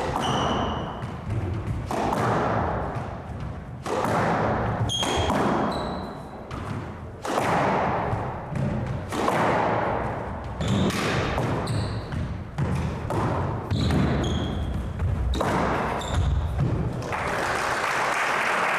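Squash rally: the ball cracking off rackets and the court walls about once a second, with short sneaker squeaks on the wooden floor between shots. Near the end the rally stops and a steady wash of applause sets in.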